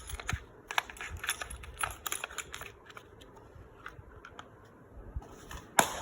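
Irregular clicks and light rattles of small hard accessories and their packaging being handled and unpacked. The clicks are dense in the first few seconds, then sparse, with one sharp, louder click near the end.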